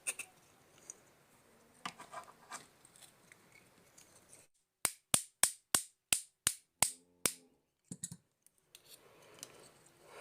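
Soldering iron parts being handled as a wire is fitted into the iron's body: light scrapes and scattered clicks, then a quick run of about nine sharp clicks, roughly four a second, midway through.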